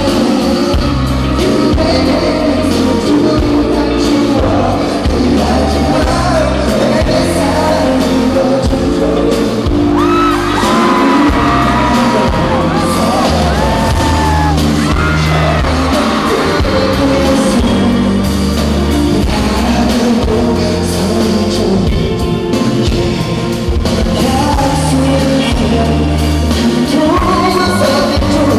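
Live pop concert heard from the crowd in a large hall: a male singer over a loud backing track with a heavy bass beat. High gliding voices rise above the music from about ten to sixteen seconds in.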